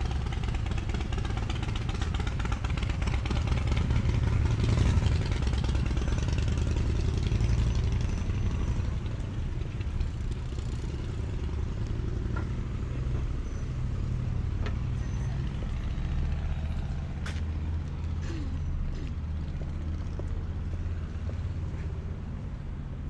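Low, steady engine rumble from a motor vehicle or boat, growing louder about four seconds in and slowly easing toward the end, with a few faint clicks.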